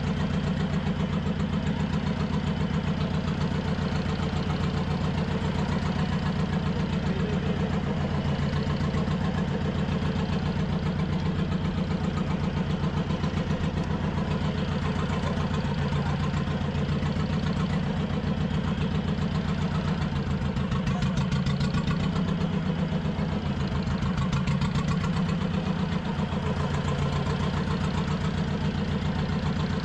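Fishing boat's engine idling steadily, with a fast, even chugging pulse.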